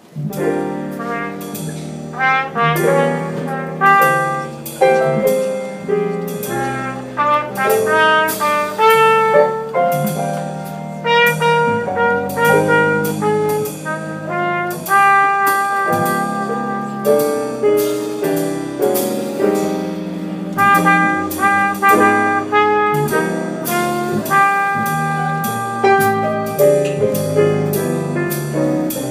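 Trumpet playing a melody over a lower chordal accompaniment. The music starts abruptly right at the beginning.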